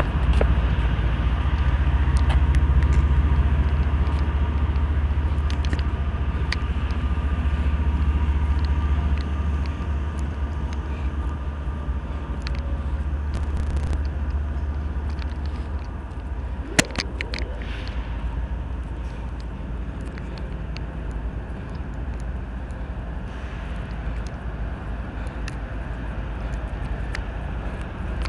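Union Pacific rock train rolling by with a steady low rumble that eases after about nine seconds. A single sharp click comes about two-thirds of the way through.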